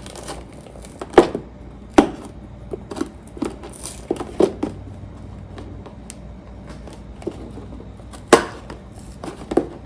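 Cardboard Lego box being forced open by hand: sharp snaps and knocks from the flaps and tabs, with the loudest about a second in, at two seconds and near the end, and lighter handling clicks between.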